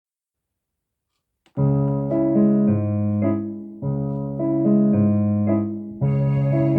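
Electronic keyboard on its violin voice playing a Ukrainian folk melody in C-sharp minor at a medium tempo, as held chords over bass notes. It comes in about a second and a half in after a small click, and the phrases restart roughly every two seconds.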